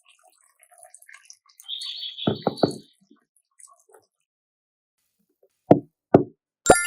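A series of hard knocks or taps: three in quick succession about two seconds in, with a high squeak, then three more about half a second apart near the end.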